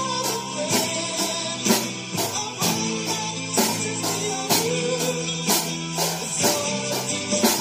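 Music: a song with guitar and singing, with an electronic drum kit played along to it, keeping a steady beat with a strong hit about once a second and lighter strokes between.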